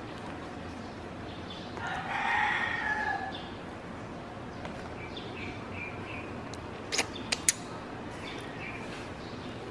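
A drawn-out animal call lasting about a second and a half, a little after the start, then a few short chirps, then three sharp clicks of the plastic fork knocking against the plastic tub near the end.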